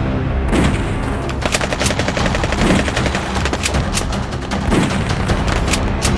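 Rapid bursts of automatic gunfire, with a deeper boom about every two seconds, laid over background music.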